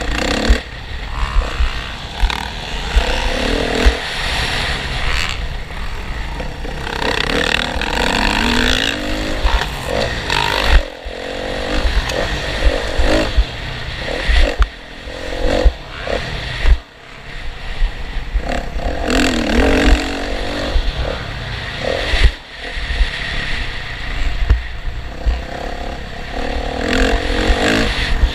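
Motocross dirt bikes' engines revving up and down again and again as they ride the track, the pitch rising and falling with each throttle burst.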